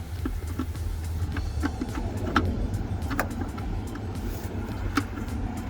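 Scattered light clicks and taps of a car door wiring harness and its plastic connector being worked by hand into the door, over a steady low hum.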